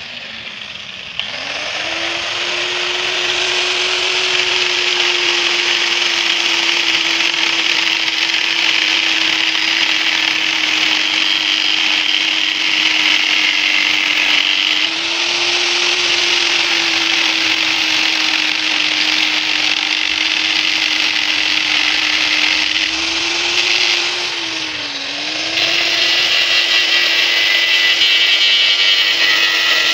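Electric power tool starting up about a second in and running steadily with a high whine over a hiss, as it works on the metal of a truck axle housing. Its speed dips briefly under load a few seconds before the end.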